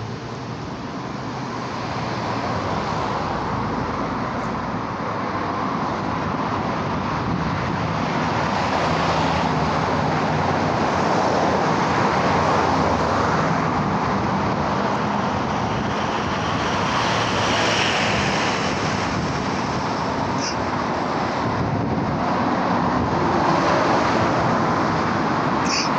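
Road traffic noise: a steady rush of passing vehicles that grows louder over the first few seconds and then holds, with two brief high-pitched chirps near the end.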